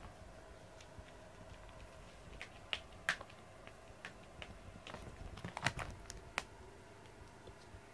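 Scattered light taps and clicks of cats pouncing and scrabbling on foam floor mats while chasing and biting a string toy, with a busier cluster about five to six seconds in.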